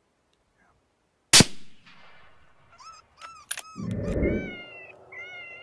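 A single gunshot about a second in, its report fading over half a second, then a string of short, high-pitched wavering cries and a brief low thumping.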